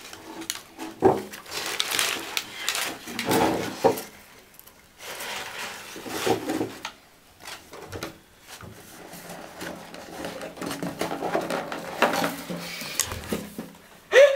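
Crumpled brown paper and cardboard rustling and knocking in irregular clumps as pet rats scramble through the paper and around and into a shoebox and toilet-roll tube.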